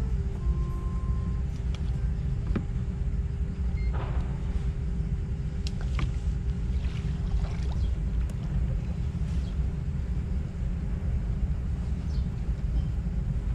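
A steady low rumble with a faint steady hum above it and a few scattered light clicks.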